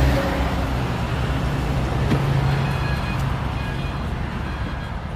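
Steady low rumble of road traffic going past.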